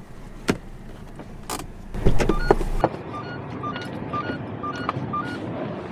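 Inside a Toyota van's cabin: two sharp clicks, then the driver's door unlatches and opens with a loud clunk about two seconds in. A quick electronic beeping follows, alternating between two notes, which is the van's open-door warning chime; it stops a little after five seconds in.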